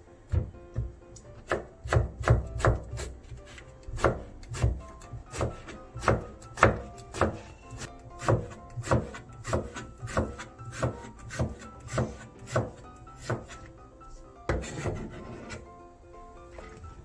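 Kitchen knife slicing eggplant on a cutting board: a run of sharp knocks as the blade hits the board, about two to three a second, pausing briefly near the end. Faint background music runs underneath.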